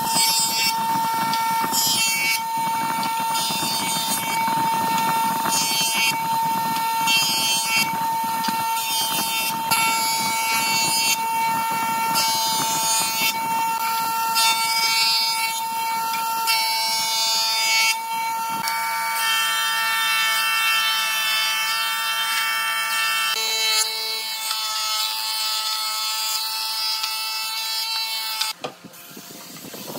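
A woodworking power tool running with a steady high-pitched whine over a noisy hiss, cutting off suddenly near the end.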